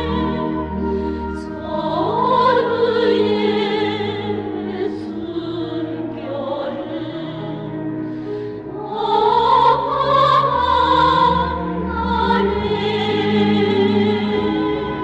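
Orchestral music with operatic singing: long held notes with a wide vibrato over a sustained accompaniment, the voices swelling and rising to louder passages about two seconds in and again around nine seconds in.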